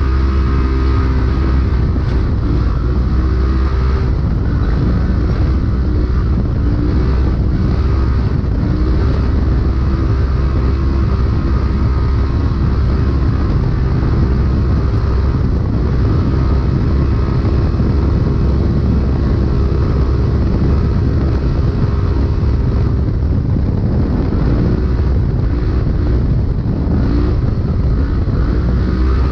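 Polaris RZR UTV engine running hard at race speed, heard from inside the cab, its pitch rising and falling as the throttle comes on and off, over a heavy steady rumble.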